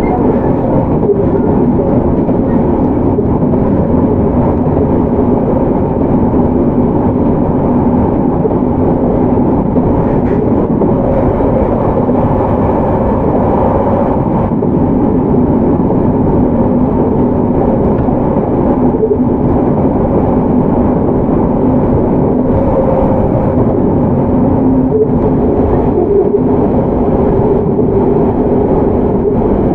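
Running sound aboard a JR Hokkaido 731 series electric train's motor car at speed: a steady, loud rumble of wheels and running gear with a hum from its Hitachi IGBT-inverter-driven traction motors, whose pitch shifts about 25 seconds in.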